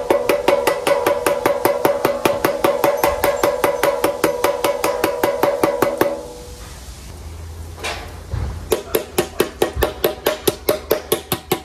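Rapid light hammer taps on a sheet-metal gutter corner, about six a second, with a ringing metallic tone. The tapping stops about six seconds in and starts again, somewhat quieter, a couple of seconds later. The overlapping seam is being hammered down to lie flat against the other piece before soldering.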